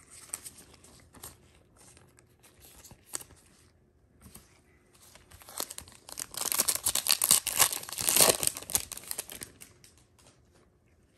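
Foil wrapper of a Panini Prizm trading-card pack being torn open and crinkled by hand. Light rustling of cards and packs for the first several seconds, then a loud, dense stretch of tearing and crinkling from about six to nine and a half seconds in.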